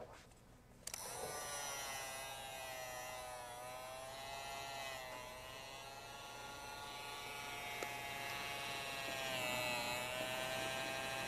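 Handheld electric heat gun running: its fan motor whine starts about a second in and holds steady, wavering slightly in pitch. A single small click about eight seconds in.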